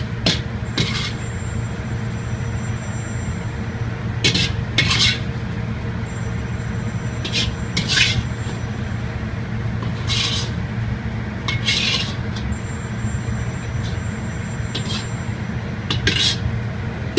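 Steady low rumble of a commercial kitchen, with about a dozen sharp metal clinks and scrapes of a ladle and dishes at irregular intervals.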